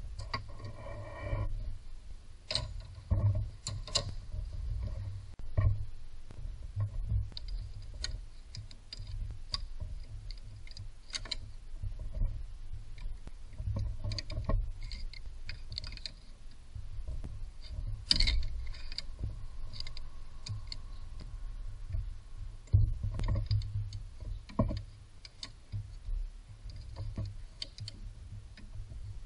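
Irregular clicks, taps and knocks of hands and hand tools handling parts in a car's engine bay, over a low rumble.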